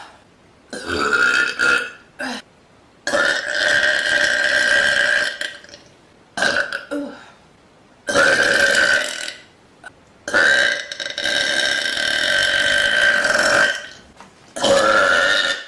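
A woman burping really loud: a run of about six burps with short pauses between them. Several are held at a steady pitch for a second or more, the longest lasting about three seconds.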